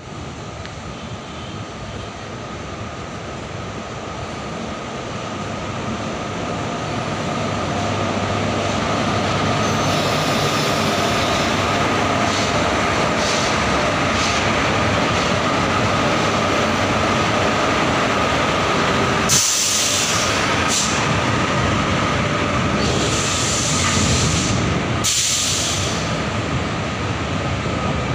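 Indian Railways goods train running past the platform, hauled by two electric locomotives: a steady rumble of locomotives and freight wagons on the rails, growing louder over the first several seconds as the train arrives, with a steady whine through it. A few short high hissing sounds come about two-thirds of the way through.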